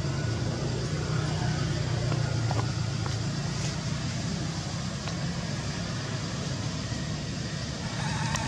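A motor vehicle engine running steadily, a low even drone.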